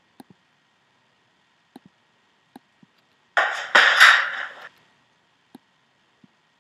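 Soft computer mouse clicks, then about three and a half seconds in a loud, noisy burst of about a second of playback audio from the video clip being edited, which starts and stops abruptly.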